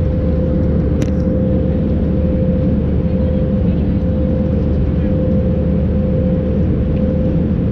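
Steady cabin drone of an Airbus A320-200 in cruise: engine and airflow rumble with one held hum tone running through it. There is a brief click about a second in.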